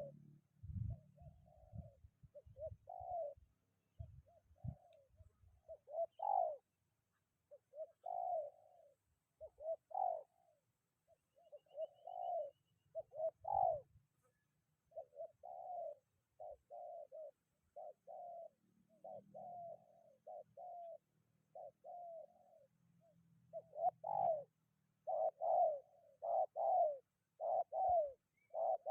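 Spotted dove (tekukur) cooing over and over, short phrases of coos following one another, coming faster and louder in the last few seconds. Low rumbling thumps under the cooing in the first few seconds.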